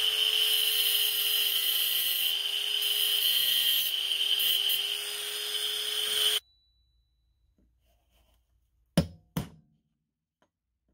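A power tool's motor running with a steady whine and hiss, stopping abruptly after about six seconds; later, two sharp clicks close together.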